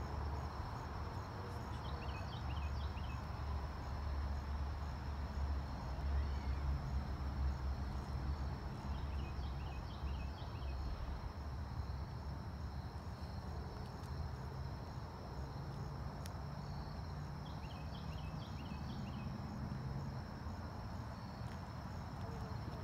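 Crickets chirping in a steady high-pitched chorus at dusk, with a short cluster of chirps coming through three times. Underneath is a steady low rumble.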